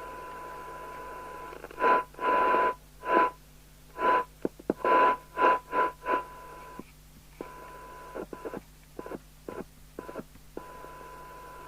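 CB radio speaker playing a steady test tone from a signal generator, broken in the middle by several loud bursts of hiss mixed with the tone, then a run of sharp clicks before the steady tone returns.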